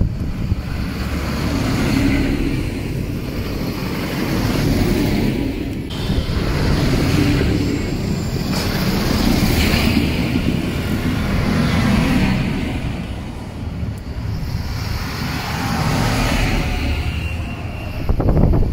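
Vintage tractors driving past one after another, their engines swelling and fading as each goes by, with a louder one near the end.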